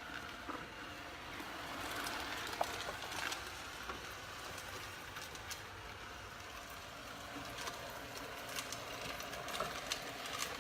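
ILIFE A4s robot vacuum cleaner running: a steady whirring hiss from its suction motor and brushes, with scattered light clicks and ticks.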